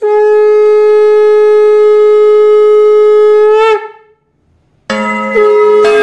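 A conch shell (shankha) blown in one long, steady note that wavers and breaks off after nearly four seconds. After a short silence, a second sustained, fuller sound starts about five seconds in.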